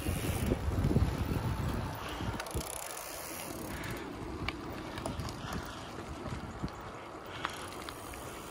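Wind buffeting the microphone of a camera on a moving bicycle, heaviest in the first two seconds. Behind it is a steady rolling noise of bicycle tyres on a gravel road, with a few small clicks.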